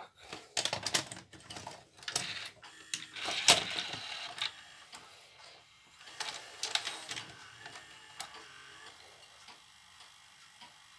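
Shivaki VHS video recorder's front-loading mechanism drawing a cassette in and seating it, now driven by a replacement rubber belt: a run of mechanical clicks and clatter for the first four seconds or so, loudest about three and a half seconds in, then a few more clicks around six to seven seconds in, and after that only a faint hum.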